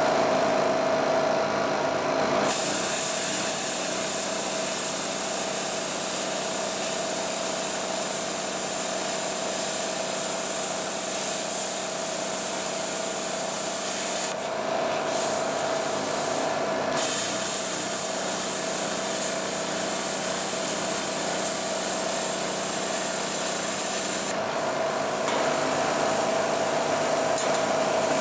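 Hand-held plasma cutter cutting a curved strip out of sheet steel, the arc hissing steadily over a constant machine hum. The cutting runs in two long passes with a break of about three seconds partway through, and stops again briefly near the end.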